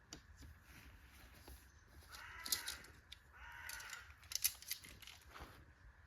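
A crow cawing twice, two harsh calls about a second apart, with scattered light clicks and rustles.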